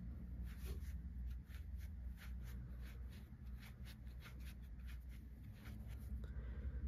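Faint rustling and light scratchy ticks of hands stuffing fibrefill into a crocheted amigurumi piece and a crochet hook pulling yarn through the stitches, over a low steady hum.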